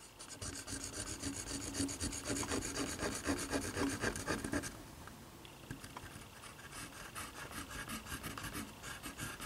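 Crayon melter pen's tip rubbing and scrubbing on paper as melted crayon is spread over a shape: a rapid, rasping scratch, dense and louder for the first four to five seconds, then lighter and sparser strokes.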